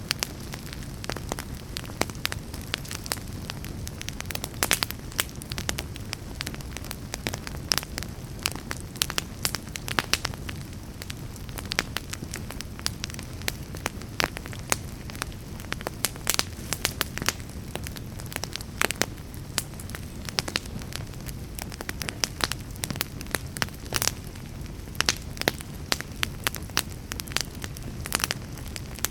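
Fire burning in a fireplace: dense crackling over a low steady rumble of flames, with a louder sharp pop every second or two.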